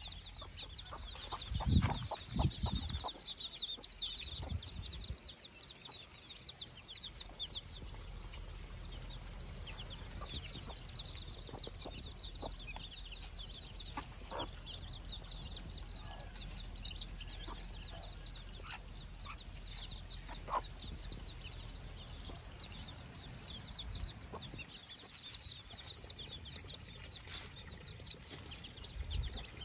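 A brood of young country chicks peeping nonstop in a rapid, high chatter, with a mother hen clucking now and then. A few low thumps about two seconds in.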